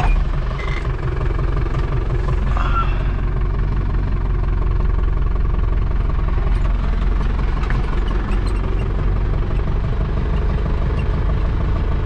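Hanomag tractor's diesel engine running steadily, heard from inside the cab while it drives.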